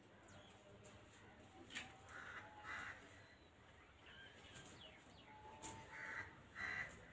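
Near silence with a few faint short bird calls, in two pairs, plus a couple of faint clicks.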